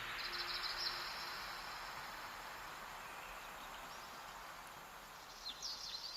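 Wind ambience that fades slowly, with bursts of fast, high chirping from insects or birds just after the start and again near the end. The last low musical notes die away about a second in.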